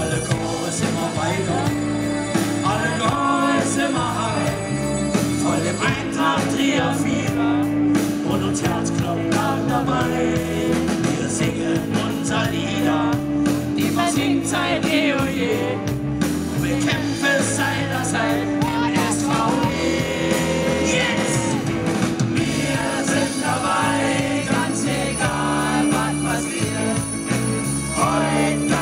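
Live band music on a stage, with several men singing together into microphones.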